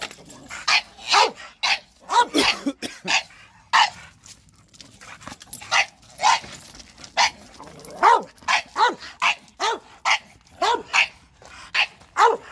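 Bulldogs barking in short, quick barks, with a brief lull a few seconds in before the barking picks up again.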